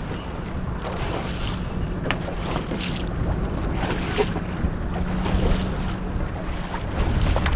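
Wind buffeting the microphone as a steady low rumble, over water lapping and slapping against the boat's hull, with a few short splashy hisses.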